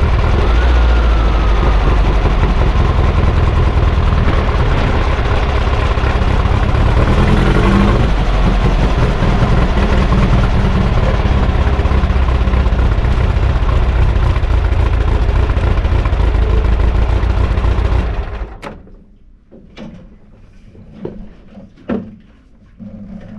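Sand buggy's carbureted engine running loud under hard driving. About eighteen seconds in it stops abruptly, leaving a few light knocks and clicks.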